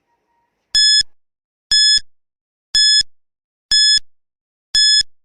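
Electronic countdown timer beeping five times, one short high beep a second, marking the time given to answer.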